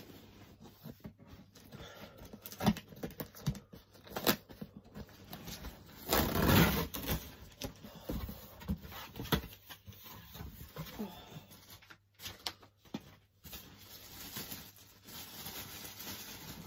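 Cardboard box being handled and opened by hand: scattered knocks, scrapes and rustles, with one louder noisy stretch lasting about a second, about six seconds in.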